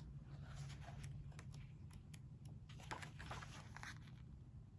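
Faint rustling and soft ticks of a hardcover book's paper pages being handled and turned, over a low steady hum.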